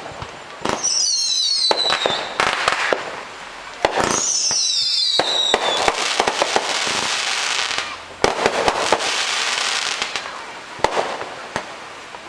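Fireworks going off: sharp bangs, two whistles that each fall in pitch over a second or more, and stretches of crackling from bursting shells.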